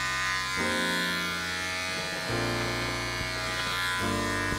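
Electric beard trimmer buzzing steadily as it is run through the hair on the side of the head, its tone changing about three times along the way.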